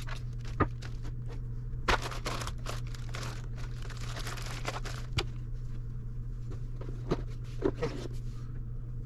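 Plastic bag of jigsaw puzzle pieces crinkling as it is handled and pressed into a cardboard box, with a few light knocks of the box and its lid. A steady low hum runs underneath.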